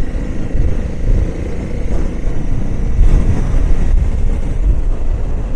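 Adventure motorcycle riding along a gravel road at moderate speed: the engine runs steadily under a heavy, fluctuating low rumble of wind and road noise on the microphone.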